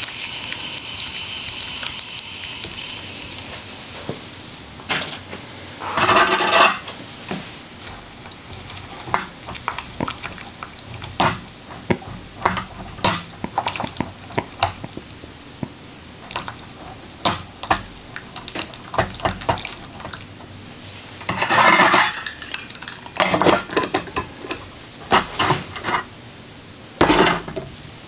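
Titanium cook kettle and a metal utensil being handled: many sharp metallic clinks and taps, with a few louder scraping clatters as the pot is moved.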